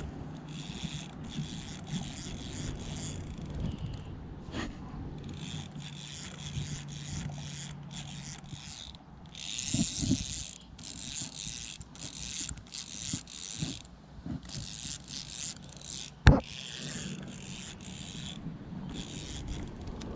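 Fishing reel being cranked in repeated bursts as line is retrieved, a whirring, clicking mechanism. A single sharp knock about sixteen seconds in is the loudest sound.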